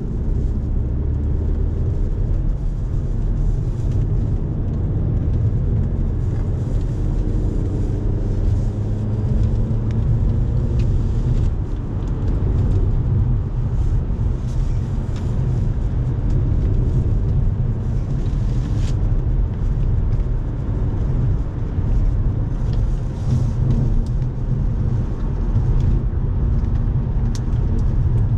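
Audi car's engine running hard at track speed, heard from inside the cabin together with a steady low tyre and road rumble; the engine note drifts up and down as the car accelerates and lifts.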